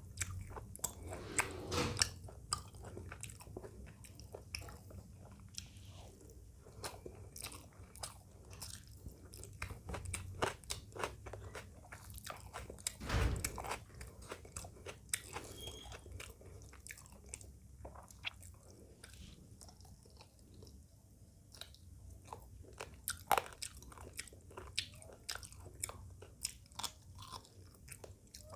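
Close-miked chewing and biting of food, with many small wet clicks and crunches of a person eating a meal of rice, chicken curry and raw salad.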